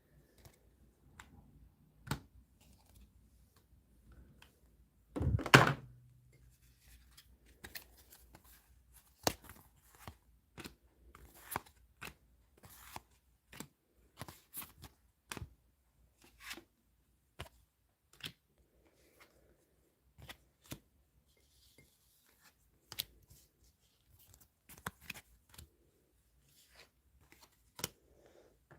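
Tarot cards and small objects being handled on a table: scattered clicks, taps and rustles, with one louder rustling thump about five seconds in.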